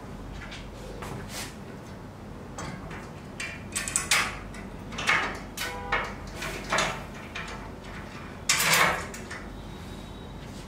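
Short metallic clinks and scrapes as a steel angle gusset plate is bolted to a CNC router's steel leg and a bolt is turned with an Allen key. The sounds come irregularly through the middle, and a longer scrape near the end is the loudest.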